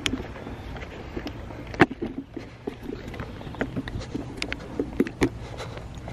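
Footsteps on a concrete sidewalk: a string of irregular light knocks, with a sharper one about two seconds in, over a faint steady low hum.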